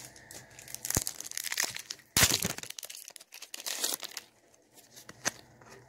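Foil Pokémon booster pack wrapper crinkling and tearing in quick crackly bursts, the loudest about two seconds in, then a few softer crackles.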